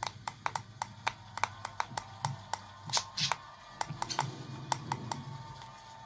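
Cockatiel pecking its beak on a glass mirror: quick, sharp taps, about three or four a second at uneven spacing, with faint background music.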